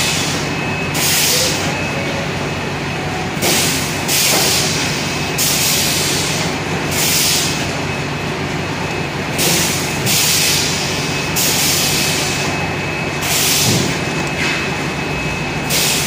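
Water bottle rinsing-filling-capping (RFC) machine running: a steady machine hum with a faint high whine, broken every second or two by short bursts of hiss.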